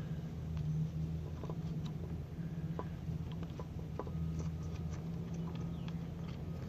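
Scattered light clicks and clinks of a hand tool working bolts out of a lawn mower engine's cover, at irregular intervals over a steady low hum.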